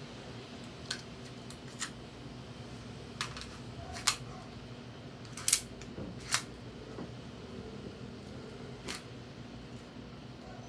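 Airsoft M1911 pistol being worked through a reload: a series of sharp clicks and clacks from the slide and magazine, about eight in all, the loudest about four and five and a half seconds in.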